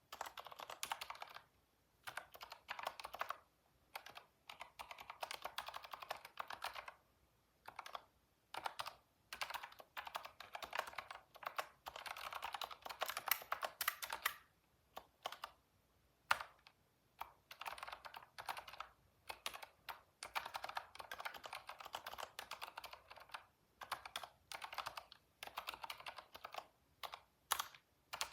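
Computer keyboard typing in quick bursts of keystrokes, broken by short pauses, with a sharper single key strike about sixteen seconds in.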